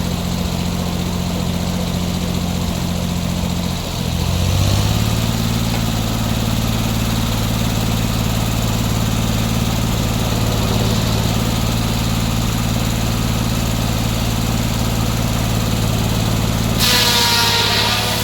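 The engine powering a circular sawmill runs steadily, and its note rises and gets louder about four seconds in. Near the end the skip-tooth circular saw blade starts cutting into the log, a loud noise with a ringing tone over the engine.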